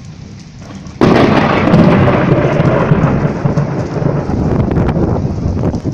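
A loud thunderclap breaks about a second in and rolls on as a long rumble that slowly fades, over steady rain.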